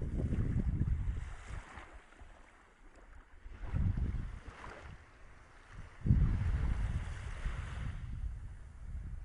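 Wind buffeting the microphone in three gusts, the longest near the end, over a soft hiss of small waves washing in shallow water.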